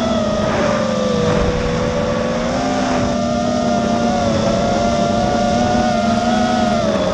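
FPV quadcopter's brushless motors and tri-blade propellers (Emax 2205 2300kv) whining steadily, the pitch drifting up and down with throttle as it flies, over a rush of air noise.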